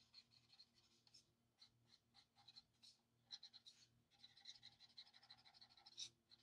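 Faint scratching of an Ohuhu alcohol marker tip stroking over coloring-book paper, in many short strokes, a few louder ones past halfway and near the end.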